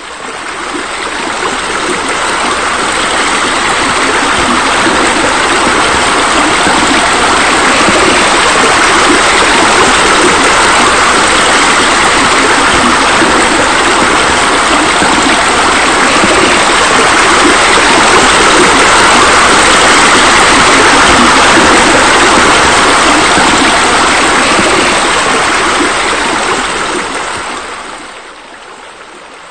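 Steady rush of running water. It swells in over the first couple of seconds and falls away sharply near the end.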